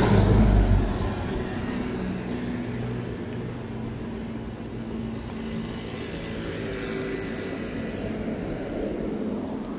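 Road traffic: a motor vehicle passes close and its rumble dies away within the first second, leaving a steady hum of engines idling and moving along the street.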